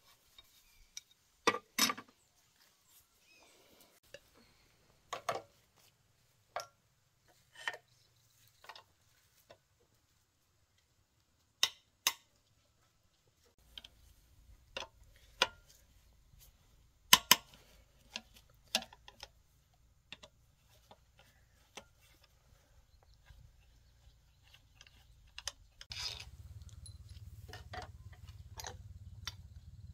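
Scattered metal clicks and clinks of tools and parts being handled on a small air-cooled engine, a few of them sharp knocks. Near the end a low steady rumble comes in.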